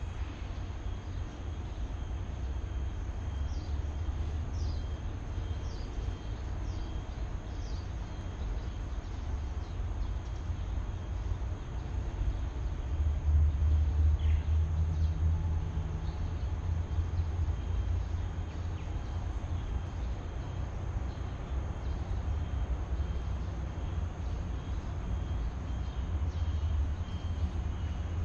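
Steady low rumble of traffic on the elevated highway overhead, swelling for a few seconds about halfway through as a heavier vehicle passes. Faint high chirps and a thin steady high tone sit on top.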